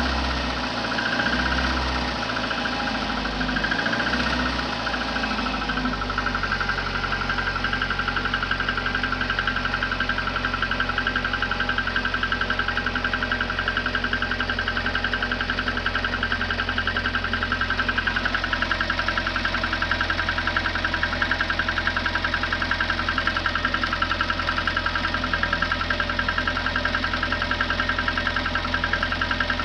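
VAZ 2110 16-valve engine idling with a rapid, even knock running through it. It is a cold-start knock that the owner says fades as the engine warms and is gone by 80 degrees. A few low thumps sound in the first five seconds.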